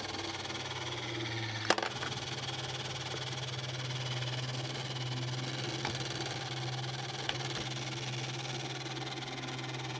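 Small electric motor and plastic gear train of a 1980s Radio Shack Robotic Banker toy robot arm whirring steadily as the arm swings. A sharp click comes about two seconds in, with two lighter clicks later.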